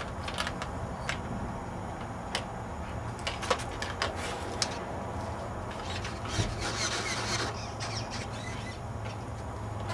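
Handling noises: a scatter of sharp clicks and rubbing, then a longer scraping rustle about six to seven and a half seconds in, over a steady low hum.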